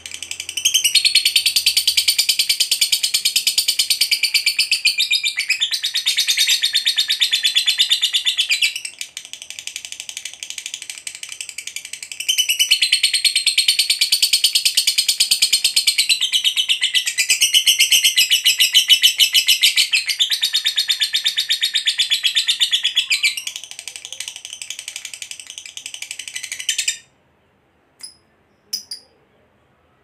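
Lovebird singing its long, rapid, high-pitched chattering song (the "ngekek panjang" trill), kept up almost without a break. It is softer for a few seconds in the middle and again near the end, then cuts off suddenly and is followed by a few faint ticks.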